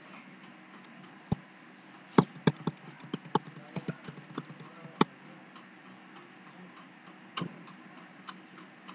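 Computer keyboard keys being struck while code is deleted in a text editor. A single click, then a quick irregular run of clicks for about three seconds, then a few lone clicks near the end.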